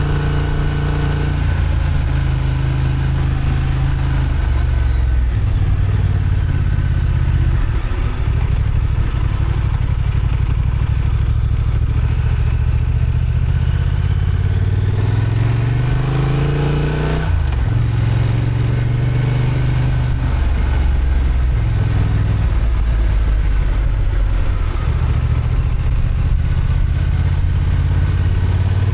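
Honda XL750 Transalp's parallel-twin engine, restricted to 35 kW, running under way, its revs rising and falling with throttle and gear changes. About seventeen seconds in, the revs climb sharply, then drop suddenly.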